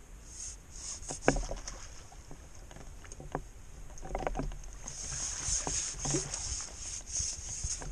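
A hooked fish splashing at the surface as it is drawn into a landing net, with splashing and sloshing over the last few seconds. A sharp knock about a second in is the loudest sound, followed by a few lighter knocks.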